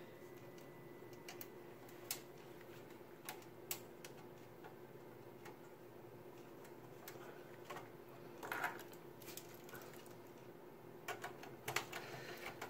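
Scattered small metallic clicks and ticks of screws being picked out and driven with a screwdriver to fasten a graphics card's bracket into a PC case, with a few clustered clicks near the end, over a faint steady hum.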